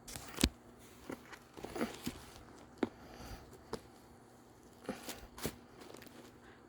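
Packaging being handled during an unboxing: scattered sharp taps and clicks with short paper rustles, the loudest about half a second in.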